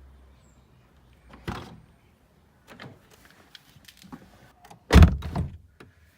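A series of mechanical clicks and knocks, with a heavy thud about one and a half seconds in and the loudest thud, followed by a short ring, about five seconds in.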